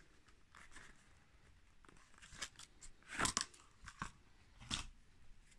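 Faint scraping and rubbing of a leather holster as a Retay G17 blank pistol is handled and drawn from it, in a few short bursts, the loudest about three seconds in.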